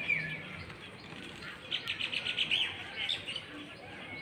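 Small songbirds chirping and calling, with a quick run of repeated notes about two seconds in and short falling calls around it.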